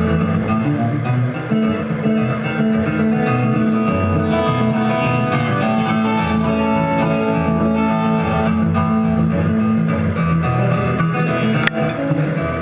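Solo six-string acoustic guitar fingerpicked live, with a busy run of picked notes over steady, sustained bass notes. One sharp click comes near the end.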